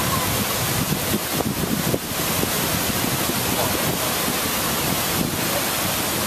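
Steady rushing of falling water, an even hiss with no breaks.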